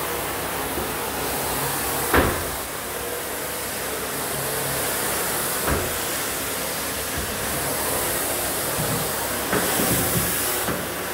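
Wet extraction wand vacuuming soapy cleaning solution off a tile floor: a steady rushing suction with a hiss. A sharp knock comes about two seconds in and a smaller one near six seconds.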